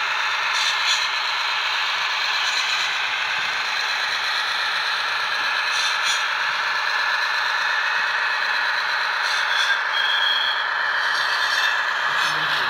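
ESU model class 215 diesel locomotive squealing through a ladder of points: a steady scraping screech with brief higher squeal tones about ten seconds in. This is the model's curve and turnout squeal.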